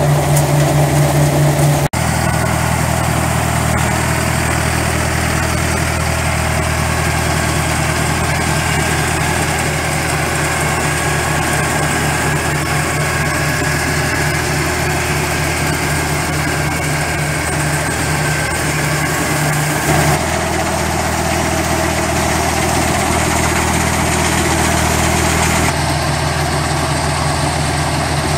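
Massey Ferguson 3660 GE tractor engine running steadily under load, with the Volentieri-Pellenc 8050 trailed olive harvester's machinery working through the tree row. The steady drone shifts abruptly in tone twice, about 2 s and about 20 s in.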